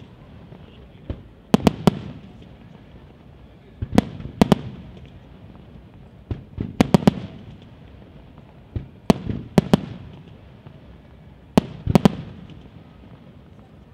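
Aerial firework shells from a Di Matteo Fireworks display bursting in quick groups of two or three sharp bangs, about every two and a half seconds, each group trailing off in echo.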